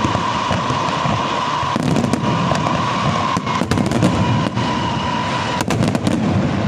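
Fireworks going off in rapid succession, a dense run of bangs and pops, with a steady high tone running underneath.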